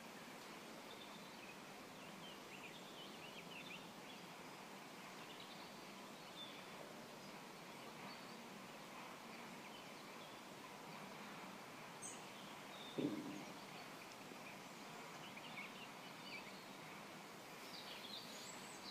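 Faint woodland ambience: a steady low hiss with scattered short bird chirps coming and going. A single dull thump about two-thirds of the way through is the loudest sound.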